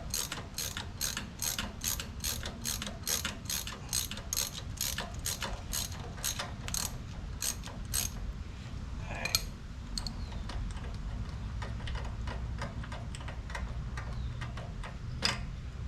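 Ratchet wrench clicking in quick, even strokes, about three or four a second, as a spark plug is backed out of a small pressure-washer engine. The clicking thins out and stops about halfway through, followed by a single metallic clink and one more click near the end.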